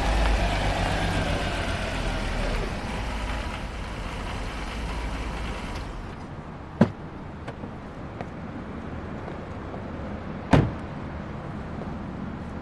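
A motor vehicle's engine running and moving off, its sound falling in pitch and fading, then dropping away abruptly about six seconds in. Over the quieter background that follows come two sharp knocks about four seconds apart, the second louder.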